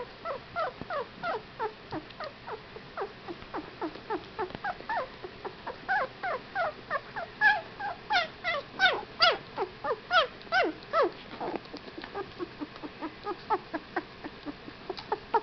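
Two-week-old whippet puppies whimpering and squeaking: short, high calls that each slide down in pitch, a few a second, growing louder and higher in the middle.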